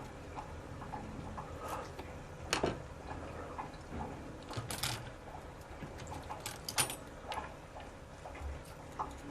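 Scattered small metallic clicks and taps from a lock cylinder and picking tools being handled, the sharpest about two and a half seconds in and again near seven seconds.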